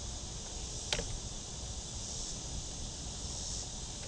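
Steady high-pitched chorus of insects, with one sharp click about a second in.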